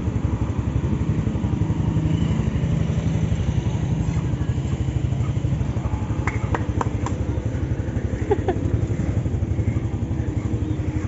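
Motorcycle engine idling with a steady low pulsing.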